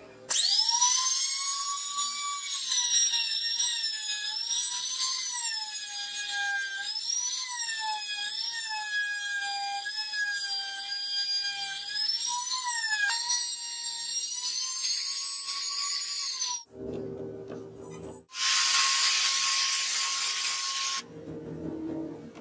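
Compact trim router running at high speed as it cuts a circle in the board, a high-pitched whine whose pitch wavers up and down as the bit takes load. It stops suddenly about sixteen seconds in, and after a short gap a second loud power-tool burst runs for a couple of seconds.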